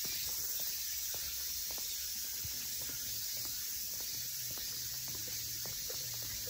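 Steady high hiss of outdoor ambience, with faint footsteps on an asphalt road.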